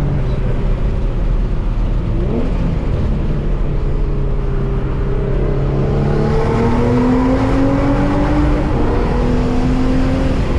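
Twin-turbo Infiniti G35 coupe's 3.5 L VQ35DE V6 with Motordyne exhaust, heard from inside the cabin while driving. It runs steadily, gives a quick rise and fall in pitch about two seconds in, then pulls under acceleration with the pitch climbing slowly through the second half.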